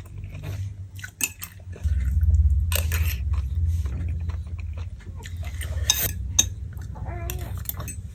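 Cutlery clicking and clinking against a plate or bowl while someone eats wet noodles, with a low rumble coming in about two seconds in. There is a brief voiced 'hmm' near the end.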